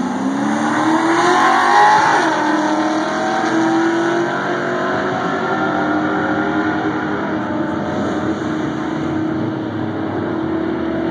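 Two drag-racing cars launching off the starting line at full throttle. The engines rise steeply in pitch, fall back sharply about two seconds in, then hold at high revs as the cars run away down the strip.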